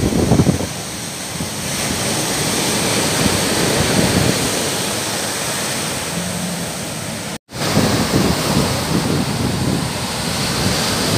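Waves breaking and washing up on a sandy beach, a steady rush of surf. The sound drops out for an instant about seven and a half seconds in.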